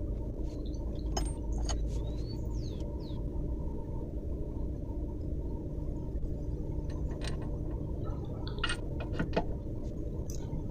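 Steady low background hum with a few scattered light clicks and taps of metal car parts being handled.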